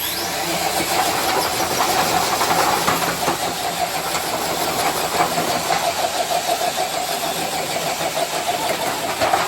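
Electric RC crawler truck's motor and geartrain whining at full throttle, with tires scrabbling on the floor, as it pulls a sled loaded with four blocks. It starts suddenly and holds steady, with a fluttering, uneven texture.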